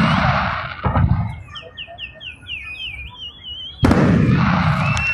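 Fireworks shells bursting: a loud boom just under a second in and another sharp bang near four seconds, each followed by a rushing, crackling tail. Between the bursts a high warbling tone sweeps up and down several times.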